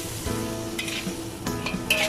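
Metal spatula scraping and tossing stir-fried vegetables around a wok, with a light sizzle and a few sharper scrapes near the end. Soft background music runs underneath.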